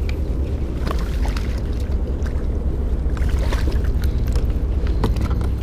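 Steady low rumble of wind on the microphone and water around a small kayak, with scattered light clicks and knocks.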